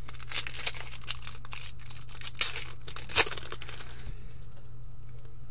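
Upper Deck hockey card pack wrapper crinkling as it is handled and torn open, with two sharp louder rips about halfway through. The crinkling stops about four seconds in.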